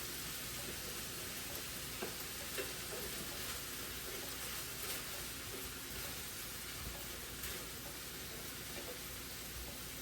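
Steak frying in butter in a pan, a steady sizzle, with a couple of faint clicks about two seconds in.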